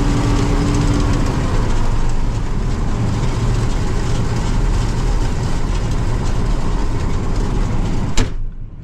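Combine harvester running steadily while harvesting corn: a heavy engine under a dense, even clatter of machinery, with a short steady whine in the first second or so. A sharp click near the end, after which the noise drops away suddenly.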